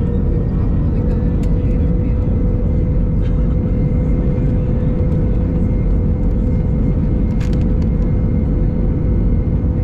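Steady cabin noise inside an Airbus A319: a deep rumble with a steady mid-pitched hum over it, and a couple of faint ticks.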